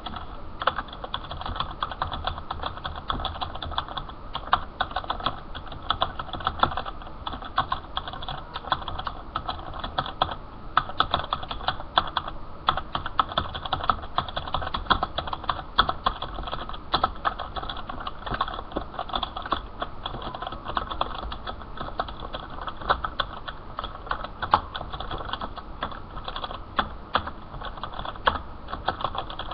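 Continuous typing on a computer keyboard: a dense, uneven run of key clicks with frequent louder keystrokes.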